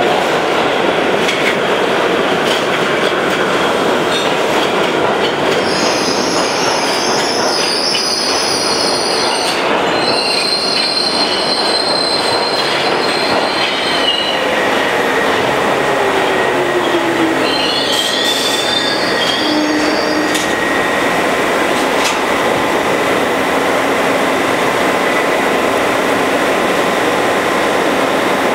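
New York City Subway R62 train pulling into an underground station, with a steady rumble of steel wheels on rail. High wheel squeals come from about six to fourteen seconds in, then a falling tone as the train slows, and a second spell of squealing a few seconds later as it draws to a stop.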